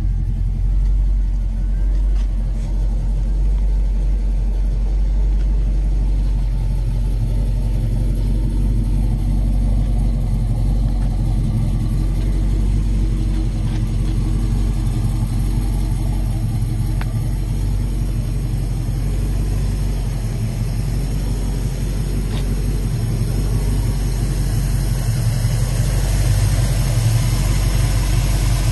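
A 383-cubic-inch V8 in a 1986 Chevrolet C-10 idling steadily with a low, even rumble.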